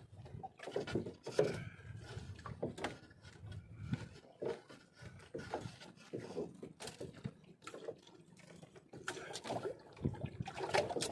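Scattered light knocks, clicks and rustles of gear being handled in a small fishing boat, with faint water sounds.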